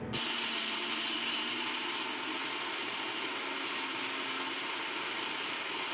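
Indian mixer grinder (mixie) starting right at the beginning, then running steadily, dry-grinding coconut pieces, coriander leaves and salt in its steel jar without water.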